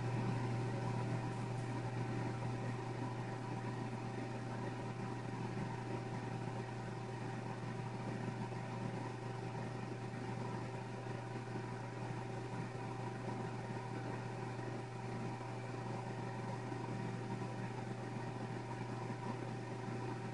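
Steady low machine hum with a fainter higher tone above it, unchanging, with no other events.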